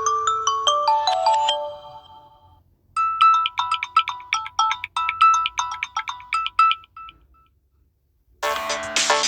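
Samsung Galaxy A21s stock ringtones playing one after another. A bell-like melody ends about a second and a half in and rings away. A short run of quick, bright notes plays from about three to seven seconds. Near the end a fuller electronic ringtone with a low steady note starts.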